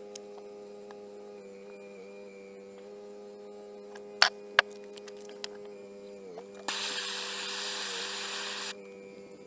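A small electric motor runs with a steady hum, its pitch dipping briefly twice in the last third as if loaded. A steady hiss joins for about two seconds in the last third, and a few sharp clicks come about four seconds in.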